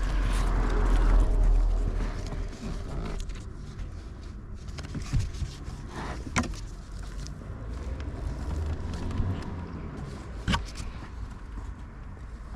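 A few scattered sharp clicks and knocks of handling over a steady low hum, with a louder low rumble in the first two seconds.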